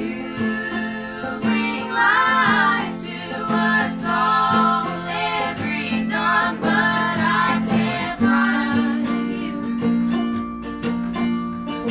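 Three women singing a folk song in close harmony over strummed acoustic guitar, banjo and mandolin, played live into microphones. The voices are strongest in the middle, with the strings carrying on under and after them.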